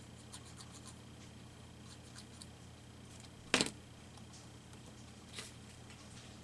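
Faint paper-craft handling at a work table: a few light snips and clicks of scissors and paper, one sharp knock about halfway through, and a brief swish of paper near the end.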